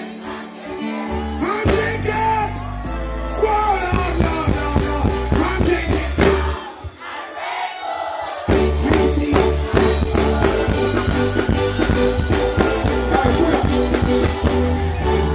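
Live reggae band music with a singer over heavy bass. About halfway through the bass drops out for a couple of seconds, then the full band comes back in.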